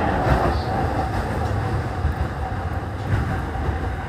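Commuter train running at speed, heard from inside the carriage: a steady rumble of wheels on rails with running hiss.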